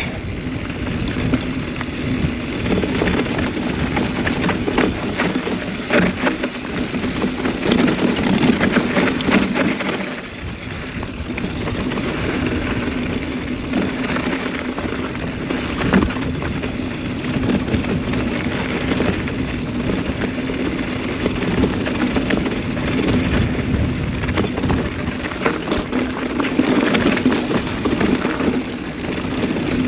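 Mountain bike descending a bumpy, hard-packed dirt trail: a steady rush of wind and tyre noise with the bike rattling and knocking sharply over bumps, the loudest knock about halfway through. The fork is a RockShox Recon, which the rider says copes poorly with hard-packed, bumpy clay.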